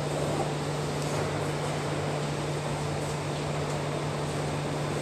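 Underground subway platform ambience: a steady low hum over even air noise from the station's ventilation.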